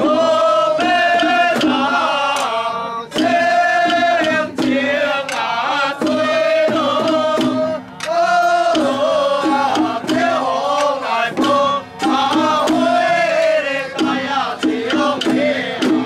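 Loud Taiwanese temple ritual music: a pitched melodic line of held and sliding notes over a low steady drone, punctuated by sharp percussion strikes.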